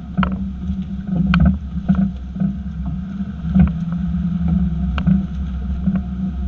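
2018 Chevy Silverado's rear end clunking: about half a dozen sharp knocks at irregular intervals over a steady low drone from the moving truck. The owner links the clunk to the rear leaf-spring suspension.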